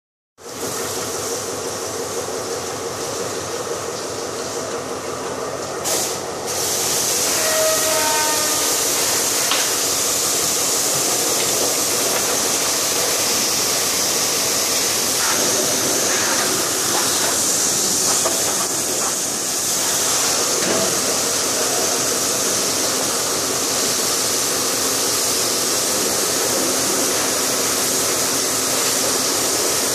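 Steady hiss of water spraying over a diesel locomotive being washed down, over a steady mechanical hum; it grows louder about six seconds in.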